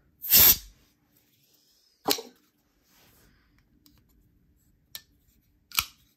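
Mallery Designs Phorus folding knife being worked after reassembly: a short loud noisy burst near the start, then three sharp metallic clicks about two, five and six seconds in as the blade is flipped open and closed against its detent and lock.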